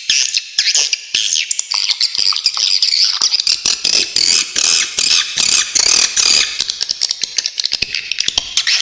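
Swiftlets calling: a dense, continuous chatter of rapid high chirps and sharp rattling clicks, looping without pause. This is the kind of recording played as a tutor song for caged songbirds.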